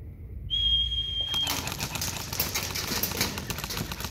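A steady high-pitched start signal lasting about a second, then airsoft replica rifles firing in rapid strings of sharp clicking shots.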